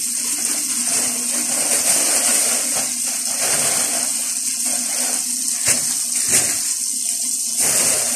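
Kitchen faucet running steadily into the sink, with brief crinkles of a plastic bag being handled.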